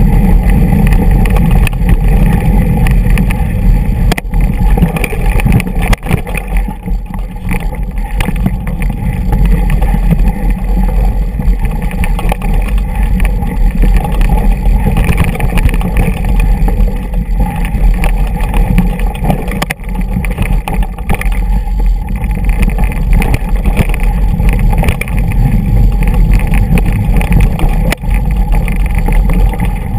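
Mountain bike descending a rocky dirt trail: wind rushing over the camera microphone and the bike rattling over stones, a loud steady rumble with a few sharper knocks.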